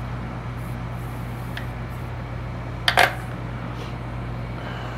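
Small parts being handled on a workbench while soldering a wire to an XT60 connector: a few faint ticks and one sharper double clack about three seconds in, over a steady low hum.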